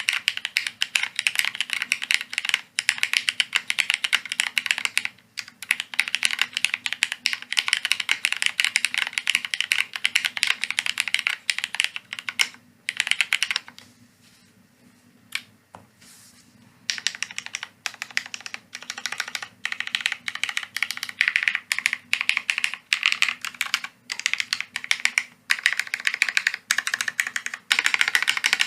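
Fast, steady typing on a Bina 103 mechanical keyboard with Cherry Hyperglide MX Black linear switches in a half aluminium plate: a dense run of key clicks. About halfway through there is a pause of about three seconds broken by a single keystroke, and then the typing resumes.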